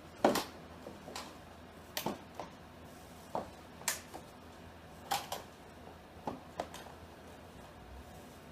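Irregular plastic clicks and knocks, about ten in all and the loudest just after the start, as a replacement cabin air filter is pushed and worked into its plastic housing.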